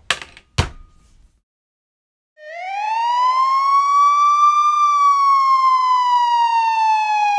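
Two sharp hits in quick succession, then, after a second or so of silence, a loud siren wail that rises and then slowly falls.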